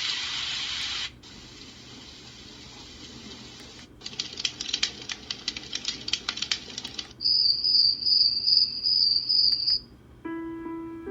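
Dreamegg D1 Nova white noise machine stepping through its nature-sound presets on its small speaker. A loud rushing hiss cuts off about a second in and a softer hiss follows. From about four seconds there is a crackling of many small pops, then a pulsing, high cricket chirp, and near the end a few piano-like notes begin.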